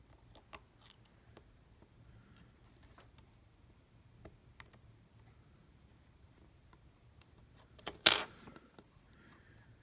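Faint, scattered light clicks and taps of small phone parts and tools being handled during a phone repair, with one brief louder noisy rustle about eight seconds in.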